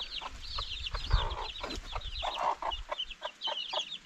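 Newly hatched chicks peeping in a continuous stream of quick, high chirps, with a hen's lower, regular clucks among them.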